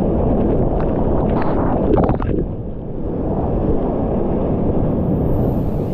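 Big whitewater rapids rushing and crashing around a kayak, heard from the kayaker's helmet camera: a constant low rumble of water, with loud splashes about two seconds in as a wave breaks over the bow and the camera.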